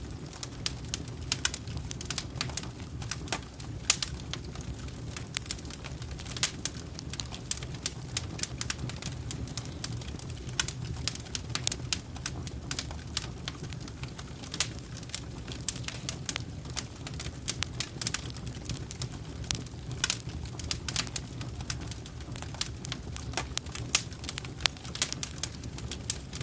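Fireplace fire crackling: frequent irregular sharp pops and snaps over a low, steady rumble of the flames.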